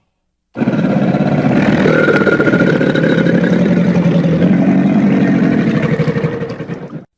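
A crocodilian's long, rough, pulsing growl, one call of about six and a half seconds that starts about half a second in and cuts off sharply near the end.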